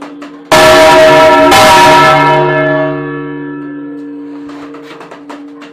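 Church bell struck very close up, twice about a second apart, each stroke very loud and its many-toned hum dying away slowly over several seconds. A third stroke comes at the very end.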